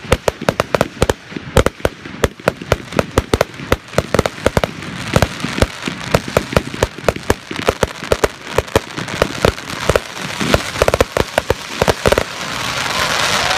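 Fireworks display: rapid volleys of sharp bangs from aerial shells and mines, several a second. Near the end a dense crackling hiss builds as a large gold crackle burst goes off.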